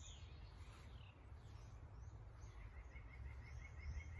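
Faint outdoor ambience: birds chirping and calling, with a run of quick, evenly repeated chirps through the second half, over a steady low rumble.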